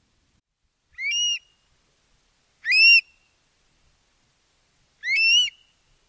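Eurasian stone-curlew calling three times, each a whistled call about half a second long that rises in pitch and then holds, a couple of seconds apart.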